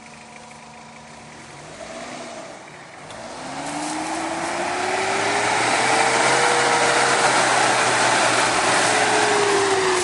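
Off-road 4x4's engine revving up from a low idle over a few seconds, held at high revs and loud for several seconds, with the revs starting to drop near the end.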